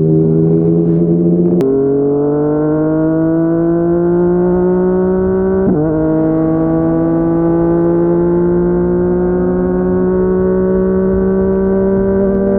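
Yamaha MT-09's three-cylinder engine through a Yoshimura R55 slip-on exhaust, pulling under acceleration. It shifts up twice, about a second and a half in and again near the middle: the pitch drops sharply at each shift, then climbs again and levels off into a near-steady cruise.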